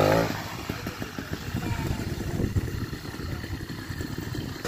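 80cc two-stroke bicycle engine kit running at low revs with a rapid, uneven putter. The loudness drops just after the start as the revs fall.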